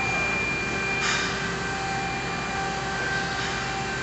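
Steady hum of workshop machinery or ventilation, with several held tones over an even rushing noise. A brief rushing burst comes about a second in.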